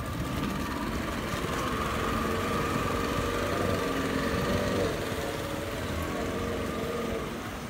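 Speedboat outboard motor running under way, a steady engine tone that is louder for the first five seconds or so, then drops and fades toward the end as the boat moves off.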